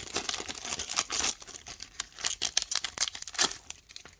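A foil trading-card pack wrapper crinkling and tearing as it is opened by hand. It is a dense run of quick crackles that dies away just before the end.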